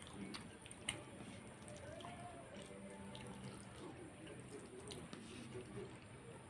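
Fingers mixing rice into curry gravy on a plate: faint wet squishing, with a couple of light clicks.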